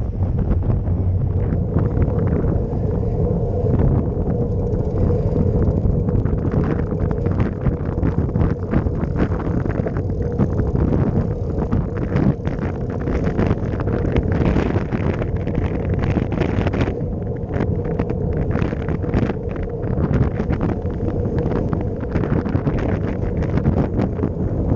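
Wind buffeting the microphone of a camera on a moving road bike, in gusts over a steady low rumble of tyres on the road.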